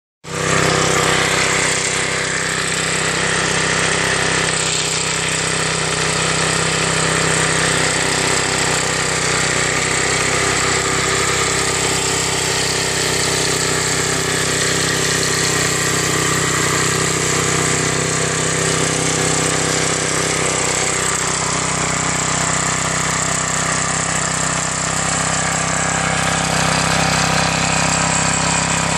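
Small mower engine running steadily at a constant speed while driving a 24-volt alternator.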